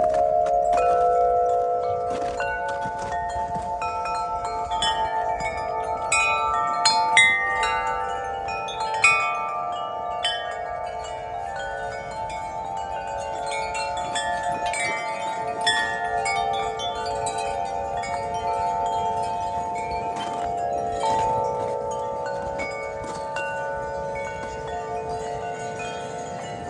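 Wind chimes ringing in the wind. Several deep tones ring on and overlap, with frequent higher strikes on top and a few sharper strikes about 7 and 9 seconds in.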